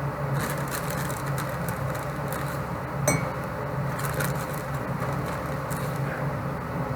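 A tablespoon scooping dry chocolate cake mix, with soft scraping and a single ringing clink about three seconds in, over a steady low hum.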